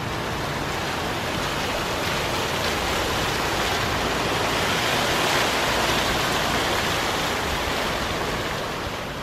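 Plaza fountain's water jets splashing down into the basin: a steady rush of falling water that swells as the fountain is passed close by, then eases off near the end.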